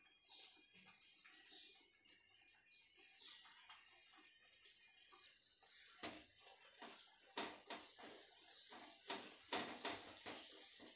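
A dosa sizzling faintly on a tawa. From about six seconds a steel spatula scrapes and taps against the pan as it presses down the vegetable topping, in a run of short clicks.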